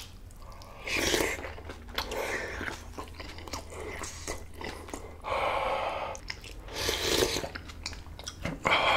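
A person chewing and biting food close to the microphone, wet mouth clicks with louder crunchy bursts about a second in, around five to six seconds, at seven seconds and again near the end.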